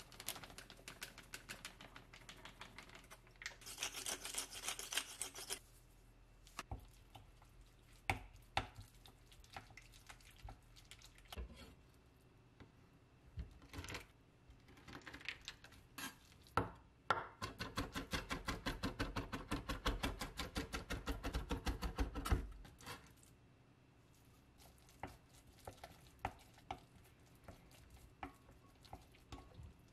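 A kitchen knife chopping raw shrimp on a wooden cutting board, ending in a loud run of quick, even strokes, several a second, for about five seconds. Before that come scattered single knocks and a few seconds of hissy rustling. Near the end there are light clicks of a wooden spoon stirring shrimp batter in a glass bowl.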